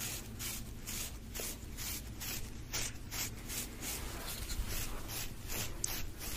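A bristle hair brush stroked rhythmically against the microphone, a scratchy brushing at about three strokes a second.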